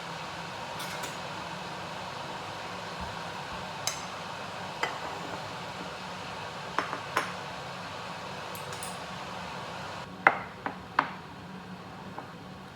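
Dishes and cutlery clinking: a few light clicks, then three sharper clinks about ten seconds in, over a steady hiss.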